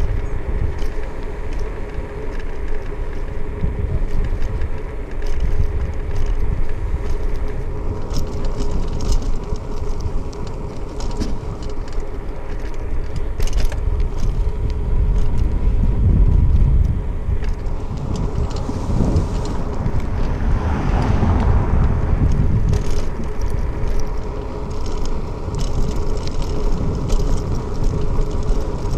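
Wind buffeting the microphone of a backpack-strap-mounted GoPro Hero 5 Session while riding a bicycle, a steady low rumble mixed with tyre and road noise. A louder rush swells for a couple of seconds about twenty seconds in.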